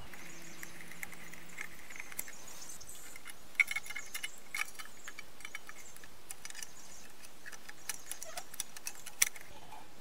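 Light metallic clicks and taps of a folding Allen-wrench set turning the bolts of a band blade sharpener's cover shield: a cluster of clicks about four seconds in and a single sharper click near the end, over a faint steady hiss.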